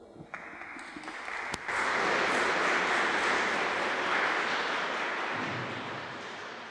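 Audience applauding at the close of a talk, building up about a second in and slowly dying away near the end.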